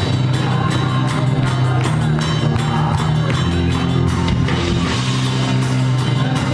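Rock band playing, with guitar and drum kit.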